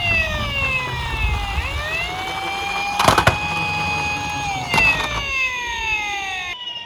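Toy police car's electronic siren wailing. A held tone falls, rises back and holds, then falls again, with two sharp clacks about three and five seconds in.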